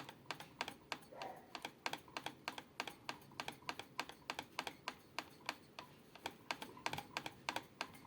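Quick, even clicking, about four or five clicks a second, as a screw is turned in by hand to refit a belt sander's pulley.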